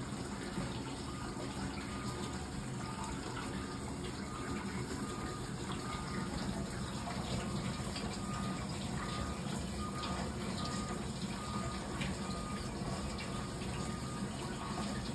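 Dishwasher running mid-wash: a steady hum from the circulation pump under the continuous spray and splash of water inside the tub.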